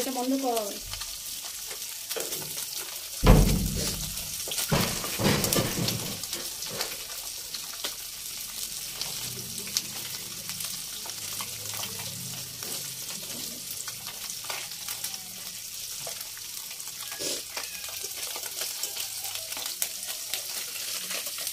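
Small tengra fish frying in hot oil in a metal wok: steady sizzling, with a metal spatula stirring and scraping the pan. There is a loud thump about three seconds in.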